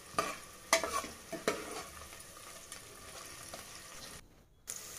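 A spoon stirring onions and green chillies frying in oil in an aluminium pressure cooker. A faint sizzle runs underneath several sharp clicks of the spoon against the pot in the first second and a half. The sound drops out briefly near the end.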